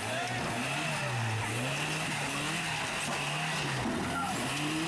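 Rock-crawling Toyota truck's engine revving up and down again and again, about once a second, as the truck crawls over rocks under load.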